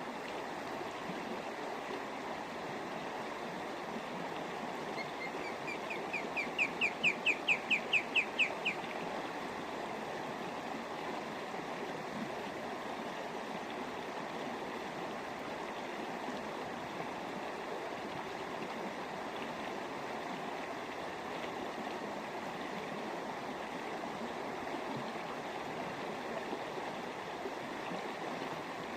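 An osprey calling: a run of about a dozen short, high whistled notes, about four a second, growing louder, about five seconds in. Under it, a steady rushing noise like running water.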